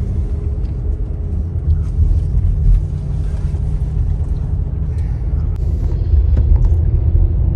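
Steady low rumble of a car on the move: engine and road noise, with a faint steady hum over it.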